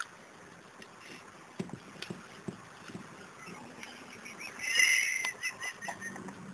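Small tabletop fountain's water trickling, with a few light taps as a kitten paws at the fountain. Near the middle comes the loudest sound, a high, wavering animal call lasting about a second and a half.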